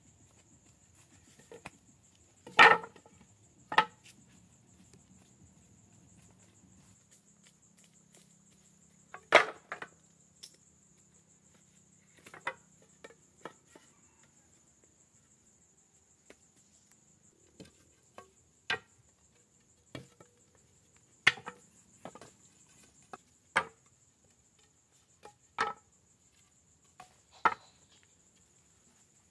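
Wood being chopped with a blade: sharp single strokes at an irregular pace, a second or more apart, with a pause after the first two. A steady high-pitched insect drone runs underneath.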